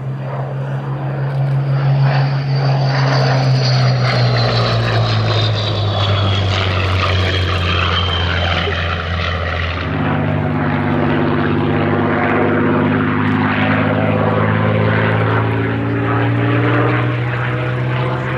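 Supermarine Spitfire's Rolls-Royce Merlin V12 engine and propeller in display flight, the engine note falling slowly in pitch as the fighter passes. About halfway through the note jumps abruptly back up and then holds steady.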